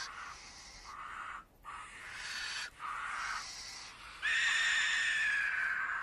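Barn owl chicks giving hissing, snore-like begging calls: a run of short calls, then one longer call of nearly two seconds near the end.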